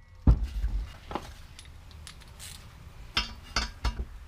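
Sharp metallic knocks and clinks of steel hand tools on a steel brake backing plate: about five in all, one near the start, one about a second in and three in quick succession near the end.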